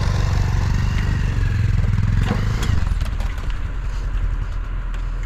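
A vehicle engine running with a low rumble, with a couple of knocks and rattles; the engine note eases a little about halfway through.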